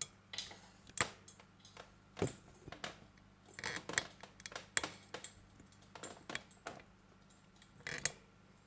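Scattered light clicks and small knocks from hands handling parts and a circuit board on a workbench, irregularly spaced, with sharper clicks about a second in, around four seconds and near the end.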